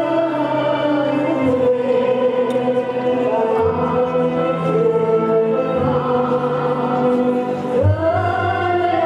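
Choral music: voices singing long held notes that move together in slow chords over low sustained bass notes.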